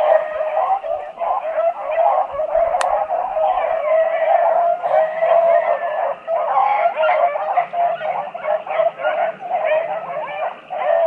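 A pack of beagles baying continuously as they run a rabbit, many voices overlapping, with one sharp click about three seconds in.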